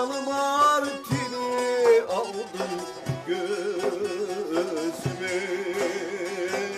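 Turkish Yörük folk song: a man sings long, wavering held notes over a kaval (long wooden end-blown flute) and bağlama, with a deep frame-drum stroke about every two seconds.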